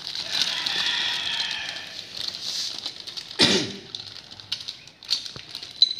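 Clear plastic parts bags crinkling and rustling as sewing-machine accessories are handled, with a single sharp knock about three and a half seconds in and a few light clicks after it.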